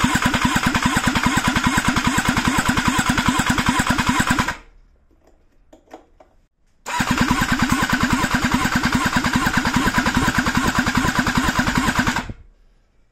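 Kawasaki STX-12F jet ski engine cranked over on its starter motor for a compression test, in two bursts of about five seconds each with evenly repeating compression pulses. A short pause with a few light clicks separates the two bursts.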